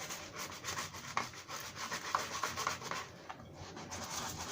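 A kitchen scrubbing tool rubbing hard on a plastic toy part in quick back-and-forth strokes, with a short pause about three seconds in. The scrubbing is working off stubborn old sticker residue.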